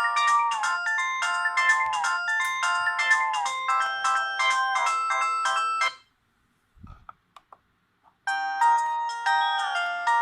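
Polyphonic ringtones from an Audiovox CDM 8400 cellphone. One tune of quick chiming synth notes stops about six seconds in. After a short pause with a soft thump and a few clicks, the next ringtone starts.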